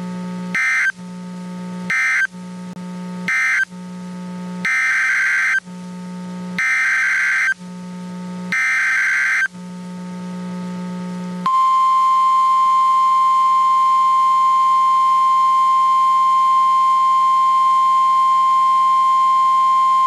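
NOAA Weather Radio alert data bursts: three short end-of-message bursts, then three longer SAME header bursts of warbling digital tones for the next alert. From about halfway through, the steady 1050 Hz Warning Alarm Tone sounds. A low radio hum runs under it all.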